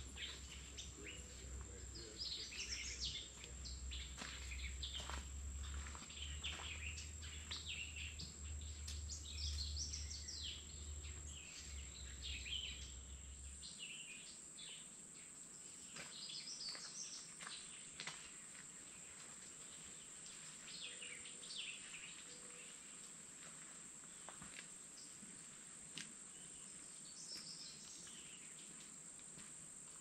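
Faint woodland birdsong: birds chirping and calling in short phrases over a steady high-pitched insect drone. A low rumble underneath stops about fourteen seconds in.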